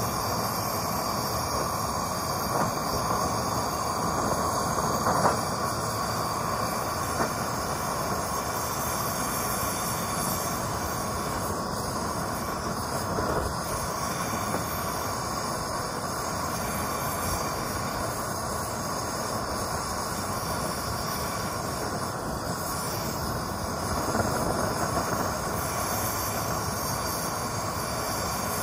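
Gas blowtorch flame blowing steadily into a small can forge, a continuous even hiss that does not change.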